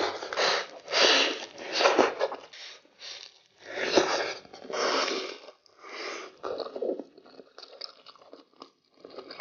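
Crunchy bites and chewing of a pan-fried Chinese chive pocket with a crisp, flaky fried crust: loud crackling crunches about once a second, giving way to softer, sparser chewing crackles over the last few seconds.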